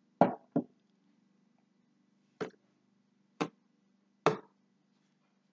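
Five sharp knocks on a hard object: two in quick succession near the start, then three more about a second apart.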